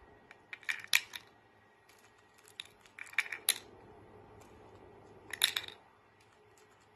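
Light plastic rings clicking and clattering as a white cockatoo handles them with its beak and drops them onto the pegs of a ring-stacking toy, in three short bursts of clicks.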